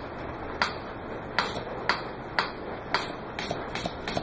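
A weed eater's two-stroke engine, converted to run on compressed air through a solenoid valve, running slowly. Each stroke gives a sharp click-and-puff, about one every two-thirds of a second at first, quickening to nearly three a second near the end as the engine speeds up.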